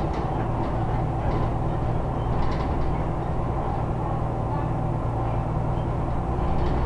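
Scania Omnidekka double-decker bus heard from inside the passenger saloon while on the move: a steady low engine drone, with a few light clicks and rattles from the interior.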